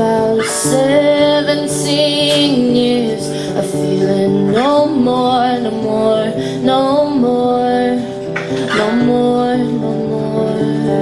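A woman singing long, sliding notes while strumming an acoustic guitar.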